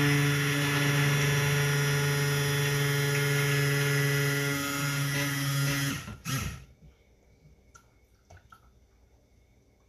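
Stick blender running steadily in a pitcher of oils and lye solution, mixing raw soap batter toward trace. It stops about six seconds in, gives one short extra pulse, and then there are only a few faint knocks.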